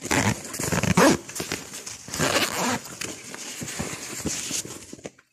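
A small fabric bag on a pram being undone and opened by hand: a few bursts of rustling and handling noise, strongest in the first second and again about two seconds in.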